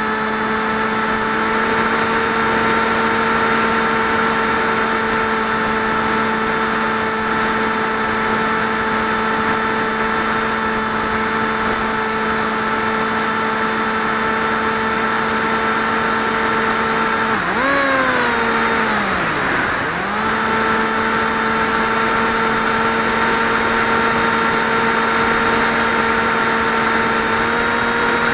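Electric motor and propeller of a Swift 2 FPV model plane, heard through its onboard 808 keychain camera, droning at a steady pitch over a hiss. About seventeen seconds in, the pitch falls away sharply for a couple of seconds, then climbs back and holds.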